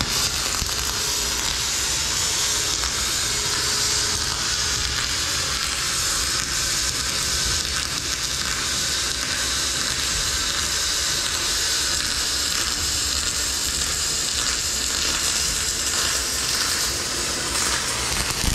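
MIG welding arc laying one long continuous bead on a billet aluminium engine block: a loud, steady hiss that cuts off abruptly near the end when the arc stops.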